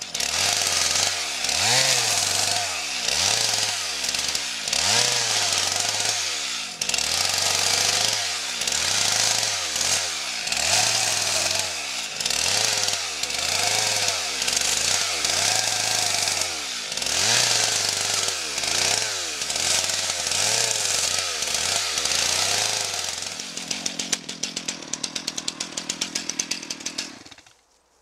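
Two-stroke chainsaw limbing a felled spruce, revving up and dropping back about once a second as it cuts through branch after branch. Near the end it settles to a steadier, lower idle for a few seconds, then the sound cuts off.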